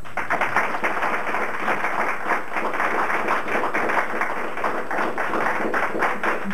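Audience applauding: many hands clapping in a dense, even patter that starts all at once and holds steady.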